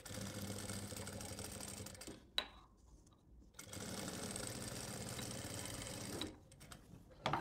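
Industrial single-needle sewing machine stitching a cotton kurta placket. It runs in two steady bursts of about two seconds each, with a single click in the short pause between them.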